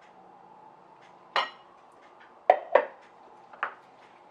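Kitchenware being handled: four short, sharp knocks and clinks, the second and third close together, the loudest of them just past the middle.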